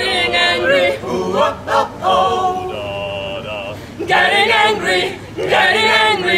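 A small a cappella group of men and women singing together, several voices at once, without instruments.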